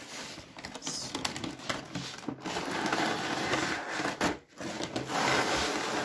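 Clear plastic blister tray rubbing and crinkling against the cardboard as it is slid out of its box, in a few stretches with short breaks.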